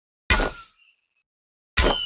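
Ewok bow firing sound effect: an arrow loosed twice, each shot a sharp snap with a brief high ringing tail, about a second and a half apart.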